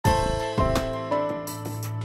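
Channel intro music: a short melody of held notes that change twice, over a steady low bass note, with a struck hit at each note change.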